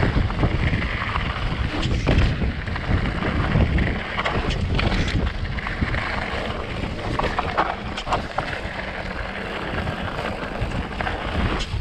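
Mountain bike descending a dirt singletrack: wind buffeting the camera microphone over a steady rumble of tyres on the trail, with scattered clacks and rattles from the bike over bumps.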